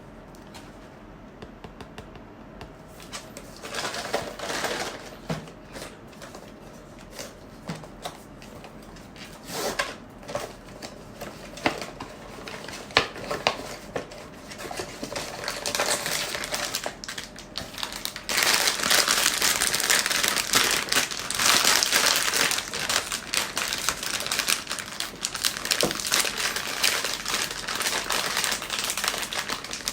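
Blind-box packaging being handled and opened: scattered taps, clicks and short rustles at first, then from a little past halfway a steady crinkling of plastic wrapping.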